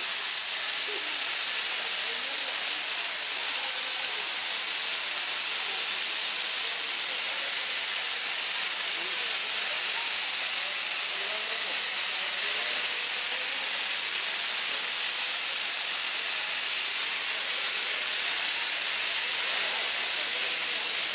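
Sri Lanka Railways Class B2B steam locomotive No. 213 standing with steam up, hissing steadily and loudly from escaping steam.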